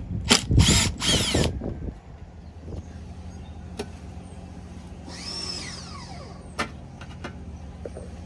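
Power drill/driver run in a few loud short bursts, then spun up in a whine that rises and falls about five seconds in, taking out the fasteners to remove a lawnmower engine's ignition coil. A steady low hum runs underneath, with a few sharp clicks.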